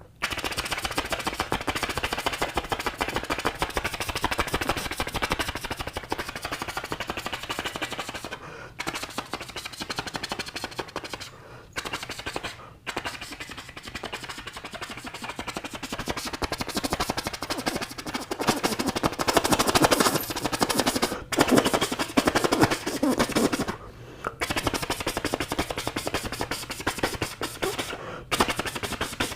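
A person imitating a helicopter by mouth: a fast, continuous chopping of rotor blades, broken by a few brief pauses for breath.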